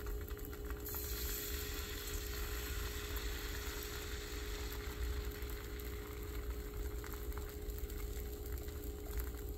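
Pancake batter sizzling in a hot oiled frying pan as it is poured in, the sizzle growing louder about a second in, over a steady low hum.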